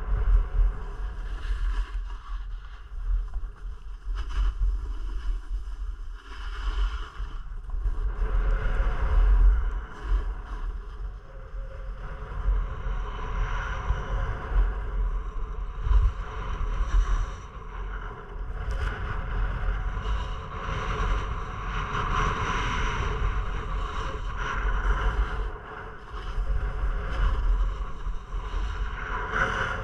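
Wind buffeting a GoPro camera's microphone in a low, gusting rumble, over a changing hiss that grows louder from about twelve seconds in.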